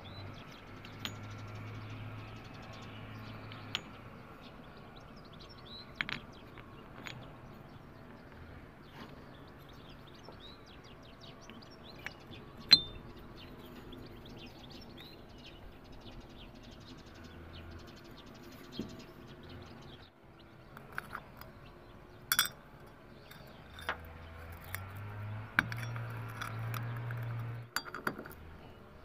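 Light metal clinks and clicks of scooter variator parts (roller weights, aluminium housing and pulley face) being handled and fitted together by hand, with the sharpest click about 13 seconds in.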